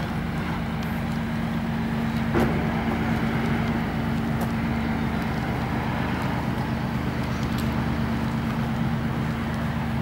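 Steady low engine hum at a ferry quay, with one short knock about two and a half seconds in.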